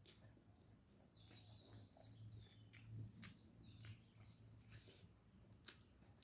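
Near silence with a low steady hum, faint bird chirps in the background and scattered soft clicks of chewing and lip smacks while eating.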